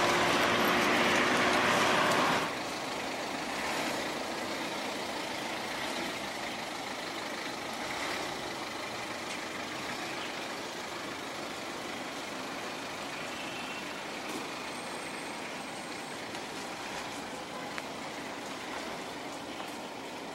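Road traffic. For the first couple of seconds a loud motor vehicle runs with a steady engine tone, then it cuts off suddenly, leaving a steady wash of traffic noise.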